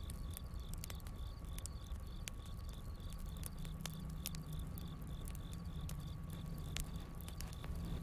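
Wood campfire crackling with scattered sharp pops over a low rumble, while crickets chirp in an even, repeating rhythm.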